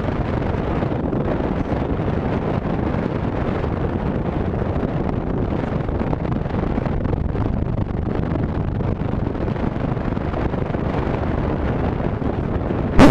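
Steady, even cabin noise of a Tecnam P92 Eaglet light-sport plane, its engine and propeller running with wind rushing over the microphone, loud enough to drown out the occupants' voices.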